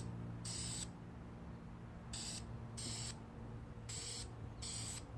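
Aerosol spray-paint can (rattle can) giving five short sprays, each under half a second and coming roughly in pairs, as the clock hands are painted. A low steady hum runs underneath.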